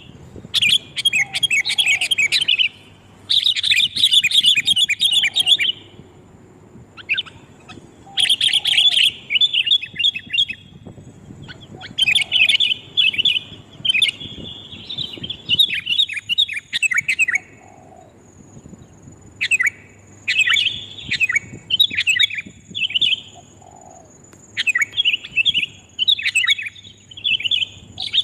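Sooty-headed bulbuls (kutilang) calling loudly as a bird-lure recording: repeated bursts of rapid, chattering chirps, each a second or two long, with short gaps between them. A faint steady high-pitched tone runs beneath the calls from about halfway through.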